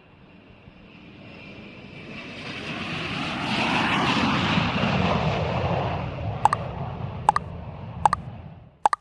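A vehicle passing by, swelling to a peak about four seconds in and then fading away, with four short sharp beeps about a second apart near the end.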